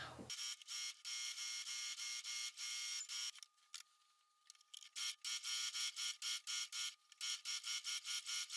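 Brother electric sewing machine quilting fabric to batting: a steady motor whine with rapid, even stitching ticks. It stops for about a second and a half a little before the middle while the fabric is repositioned, then runs again.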